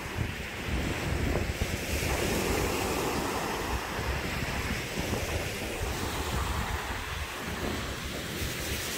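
Small lake waves breaking and washing up onto a pebble beach, with wind rumbling on the microphone.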